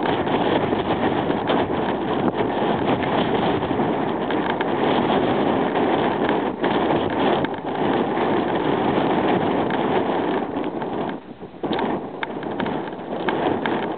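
Wind buffeting the camera's microphone: a loud, steady rushing noise that eases off briefly near the end, with a few faint clicks.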